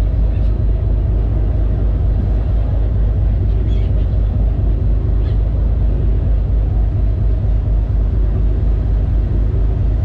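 Steady low rumble of a passenger ferry under way, its engine and the wind over the open deck, with a few faint seagull cries about 4 and 5 seconds in.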